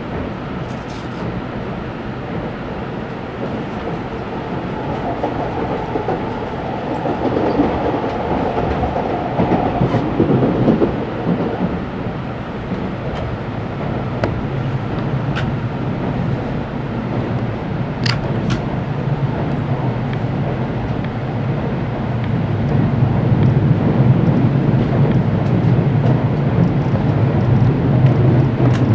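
Running noise heard inside a Tokaido Shinkansen car under way: a steady rumble and rush, with a low hum that grows louder in the last several seconds and a couple of sharp clicks about eighteen seconds in.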